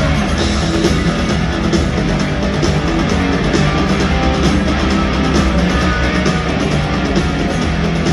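Rock music with no singing: guitars over a steady drum beat.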